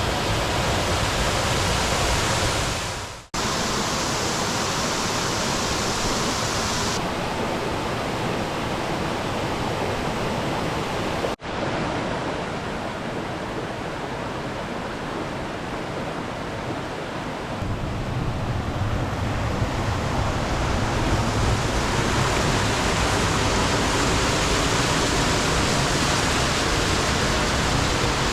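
Waterfall rushing: a steady, dense roar of falling water, cut abruptly twice and changing its balance a few times as the sound jumps between takes.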